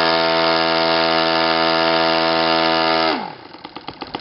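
YS FZ115S supercharged, fuel-injected four-stroke glow engine with a straight header stack, running at full throttle with a steady high pitch at about 9,900 rpm on a 14x12 propeller. About three seconds in, the throttle is chopped and the pitch drops quickly to an idle of separate firing beats.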